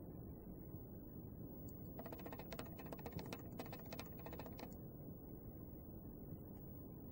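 A short run of rapid, faint clicks, starting about two seconds in and lasting under three seconds, over a steady low background hiss.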